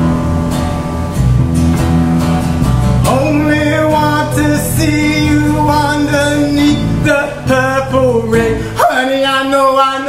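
Twelve-string acoustic guitar strummed in chords, joined about three seconds in by a man's voice singing long held notes.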